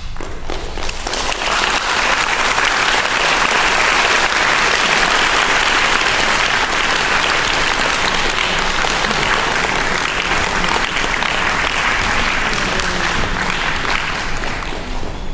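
An audience applauding: dense, steady clapping that starts suddenly, fills out within a second and begins to fade near the end.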